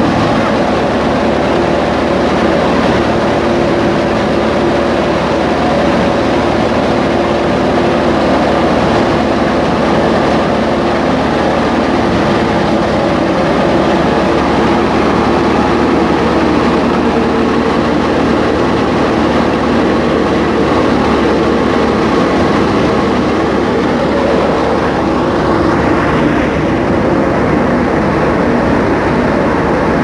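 Tractor-driven Sultan wheat thresher running at a steady speed while threshing wheat: a loud, unchanging mechanical drone with steady tones.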